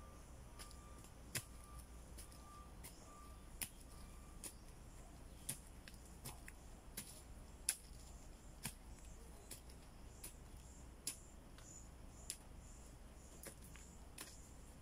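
Faint scattered clicks and crackles of hands working soil and dry leaf litter while planting a seedling, irregular and about one a second, over a steady low hum.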